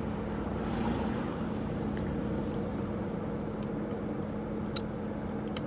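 Steady hum of a car idling, with a constant low drone, and a few short sharp clicks.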